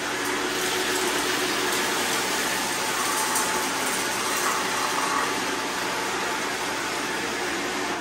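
Several robot vacuums running at once on a tile floor, a steady whir of suction motors and brushes picking up spilled rice.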